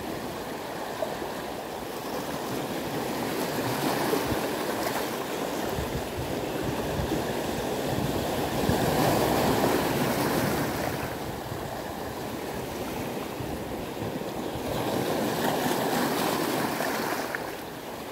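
Sea waves washing and breaking on a rocky shore, rising and falling in slow surges.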